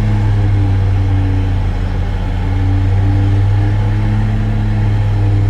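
Vehicle engine running steadily: a loud, low, constant hum with a few steady tones above it.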